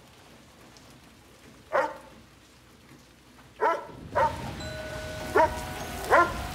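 Dog barking about five times, single sharp barks a second or so apart. Rain comes in about four seconds in and keeps falling steadily.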